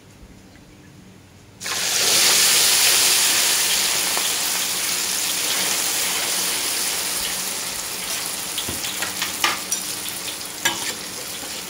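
Thin beaten egg hitting a wok of hot oil about two seconds in: a sudden loud sizzle that slowly eases into steady deep-frying, with scattered sharp pops near the end. The spitting comes from water mixed into the egg batter.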